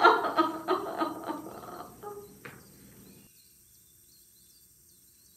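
A voice exclaiming and muttering without clear words, fading out over the first two and a half seconds, then near silence with a few faint high chirps.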